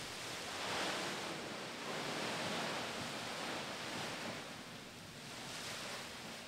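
Masses of thin white plastic bags rustling and swishing as a dancer crawls and pushes through them, making a rushing noise that swells and fades every couple of seconds.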